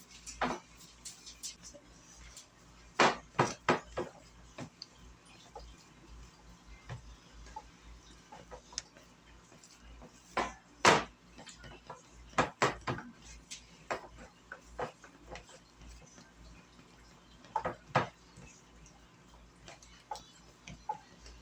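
Scattered knocks, taps and clatter of kitchen items being handled, such as a pan and utensils set down on a counter. The loudest strikes come a few seconds in and around the middle.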